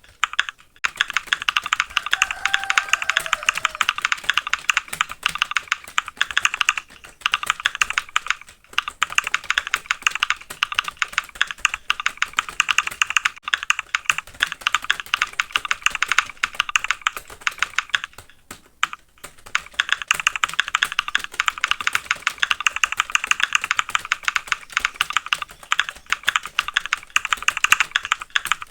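Fast typing on a computer keyboard: a dense, steady stream of keystrokes broken by short pauses about 7 seconds, 9 seconds and 19 seconds in.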